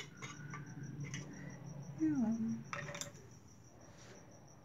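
Light metallic clicks and clinks of parts being handled on a VW Golf five-speed transmission during reassembly, with a brief falling vocal sound about two seconds in. A steady high pulsing chirp runs underneath.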